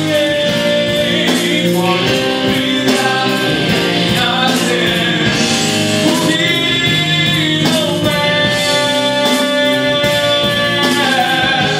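Several men's voices singing together in harmony, holding long notes, over a rock band with drums and cymbals: a number from a rock-opera stage musical.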